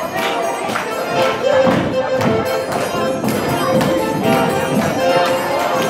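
Live dance band music with a steady beat and held melody notes.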